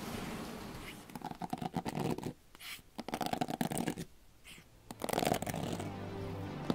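Close-up crackling and rustling, ASMR-style, in two stretches of dense small clicks. About five seconds in, a steady low hum with music comes in under the crackle.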